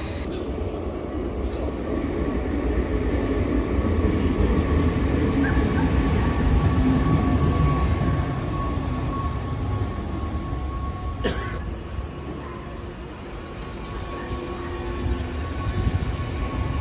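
Train running through the station with a steady low rumble and a faint whine, swelling and easing, and a single sharp clack about two-thirds of the way through.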